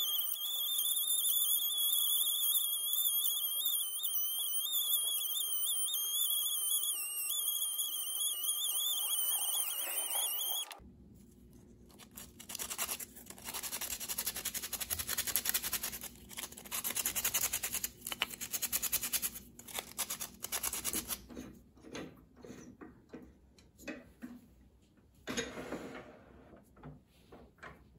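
Cordless Dremel Stylus rotary tool running at high speed as its bit grinds holes into an ash goblet stem: a high whine that wavers slightly in pitch, stopping abruptly about ten seconds in. Then sandpaper rubbing on the wood by hand in uneven bouts of strokes with pauses, fading to faint scattered handling noises near the end.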